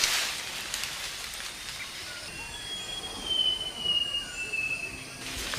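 Rainforest ambience: a long, thin high whistle that slowly falls in pitch, starting about two seconds in and lasting about three seconds, over a steady background hiss.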